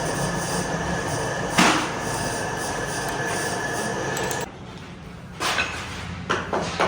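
Steady, dense mechanical noise with a constant high whine, broken by a sharp click about a second and a half in. It cuts off suddenly about four and a half seconds in, leaving a few separate knocks.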